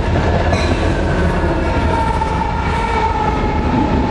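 CSX freight train running past close by, its locomotives (an EMD SD40-2 and a GE ES44AH) rumbling by and then the cars following. From about a second and a half in, a high steady whine rises over the rumble and dips slightly in pitch as it passes.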